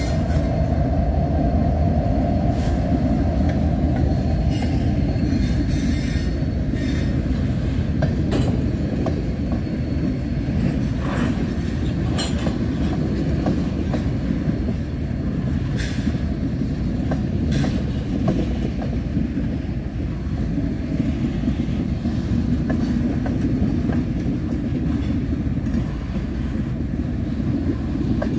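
Freight train of covered hopper cars rolling past close by: a steady low rumble of steel wheels on rail, with scattered sharp clicks and clacks from the running gear. A faint wheel squeal is heard in the first couple of seconds.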